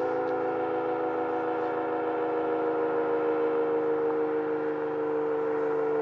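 ACA P-50 outdoor warning siren sounding the full attack signal: a steady tone of several notes held at one pitch, sagging very slightly lower over the few seconds.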